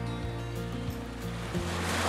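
Background music of held chords over a steady bass; about a second and a half in, the wash of waves over rocks swells in beneath it.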